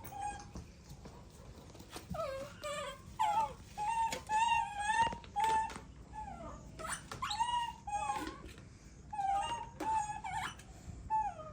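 Baby monkey crying in a rapid series of short, high-pitched calls, many of them falling in pitch.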